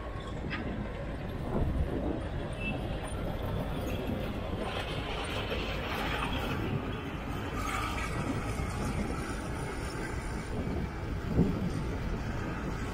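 Diesel engines of earthmoving machines running steadily: a tracked Caterpillar loader driving close by and a large Sumitomo excavator at work. A few knocks sound over the rumble, the sharpest about eleven seconds in.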